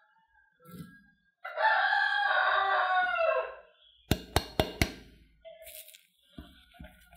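A rooster crows once, a loud call of about two seconds that falls in pitch at the end. Then come four sharp clinks of a glass beaker tapped on a glass bowl, and a wooden spoon starts knocking in the bowl near the end.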